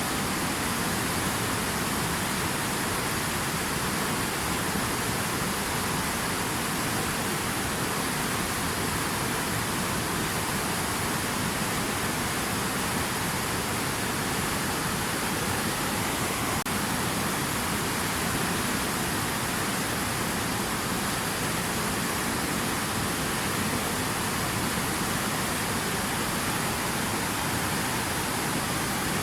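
Steady rushing water, an even continuous hiss with no changes.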